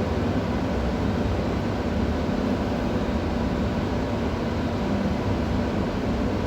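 Steady background rumble and hiss with a faint low hum, no single event standing out.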